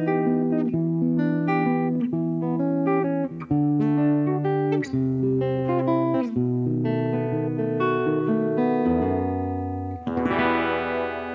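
Steel-string acoustic guitar, fingerpicked solo as the song's closing instrumental passage: plucked melody notes over a moving bass line. About ten seconds in, a final strummed chord is struck and left to ring.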